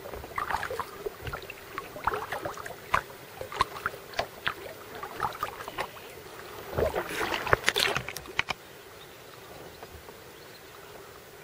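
Kayak paddling: paddle blades dipping and splashing in the water with small knocks and drips, irregular and busiest about seven to eight seconds in. The splashing stops about eight and a half seconds in, leaving only a faint steady hiss.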